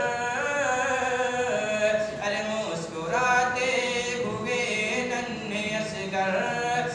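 A man's voice reciting a naat, an Urdu devotional poem, sung unaccompanied in long held lines that slide in pitch.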